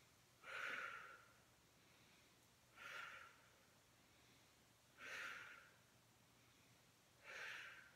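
A woman breathing hard: four soft breaths about two seconds apart, paced with slow repetitions of a resistance-band clam exercise.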